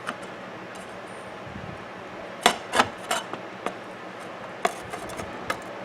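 A handful of light clicks and knocks, bunched in the middle and later part, as the glass front is fitted back onto a wall clock.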